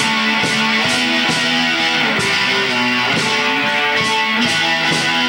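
A heavy metal band playing a jam: electric guitars holding and changing chords over drums, with cymbal hits about every half second.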